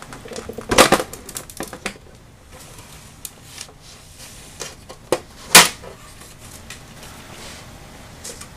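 Scattered sharp clicks and knocks of plastic monitor parts and a hand tool being handled: a short cluster about a second in, and two loud knocks around five seconds in.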